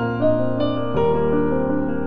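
Soft background piano music, with single notes over held chords and a chord change about a second in.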